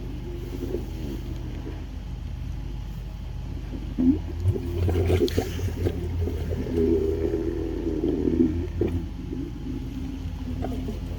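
Water gurgling and surging through a clogged sump pump discharge line being hydro-jetted, loudest from about four to nine seconds in, over the steady low hum of running machinery.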